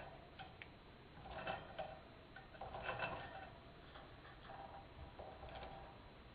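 Budgerigars chattering softly with clicks, in a few short bursts.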